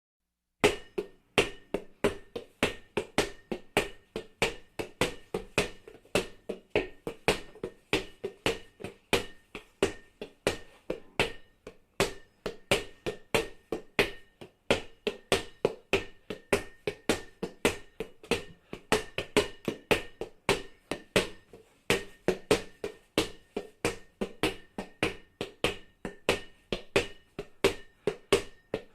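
A ball bouncing over and over at a steady pace, about three bounces a second, each bounce a sharp smack with a short hollow ring.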